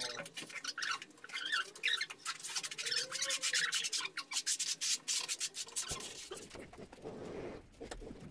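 Steel notched trowel scraping and spreading tile adhesive on a concrete floor in a run of short scraping strokes, which thin out after about six seconds.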